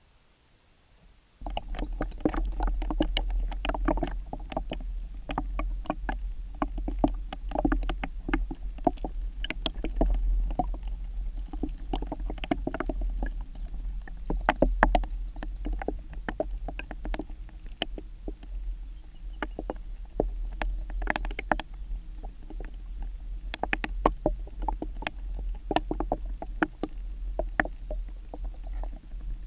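Water noise picked up through an underwater camera housing: a steady low rumble with dense, irregular clicks and knocks that starts suddenly about a second and a half in.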